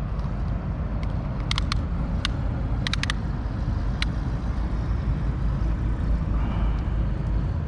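Steady low rumble of wind on the microphone, with a few short sharp clicks between about one and a half and four seconds in as a tape measure is handled against a sheepshead on the kayak's plastic deck.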